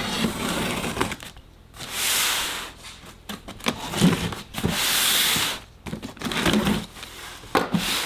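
A knife cutting through the packing tape along the seams of a cardboard box: scratchy scraping and rubbing of blade on tape and cardboard, with two longer hissing strokes about two and five seconds in.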